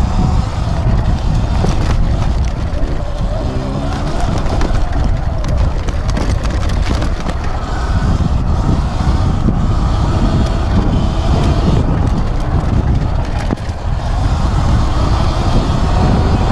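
Riding noise from a Sur Ron X electric dirt bike on dirt singletrack: wind rushing over the microphone, tyres and drivetrain running on the trail, and scattered ticks from gravel and stones, with no engine note because the bike is electric.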